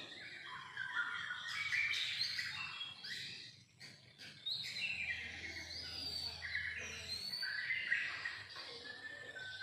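Songbirds chirping and singing: a busy mix of quick whistled notes and trills, with a brief lull about three and a half seconds in.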